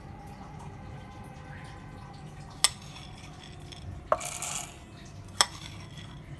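Roasted chironji seeds poured from a plate into an empty stainless-steel mixer-grinder jar, with a brief rattle of seeds hitting the steel about four seconds in. Two sharp clicks come before and after it.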